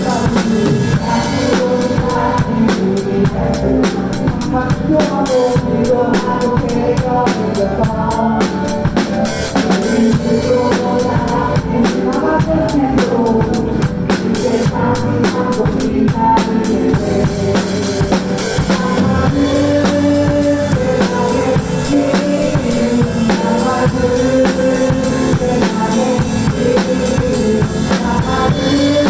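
Drum kit played along to a worship-song backing track, with kick, snare and cymbals over steady music and a sung melody.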